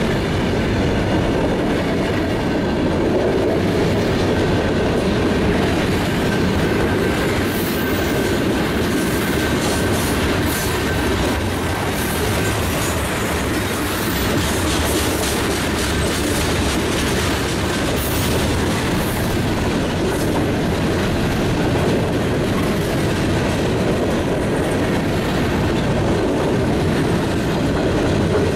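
Freight train cars (covered hoppers, open hoppers and boxcars) rolling steadily past close by: a continuous rumble of steel wheels on rail with clickety-clack over the rail joints. A faint thin wheel squeal runs through the first twelve seconds or so.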